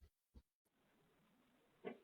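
Near silence, broken by one short faint sound just before the end.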